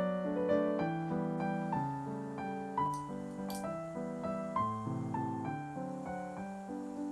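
Soft background piano music, a slow melody over chords, with a couple of faint clicks about three seconds in.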